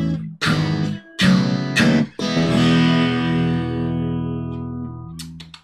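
Instrumental rock played on a Washburn acoustic guitar with a Fender Precision bass. A few sharp strummed chords are followed by one chord left ringing, which fades away over about three seconds.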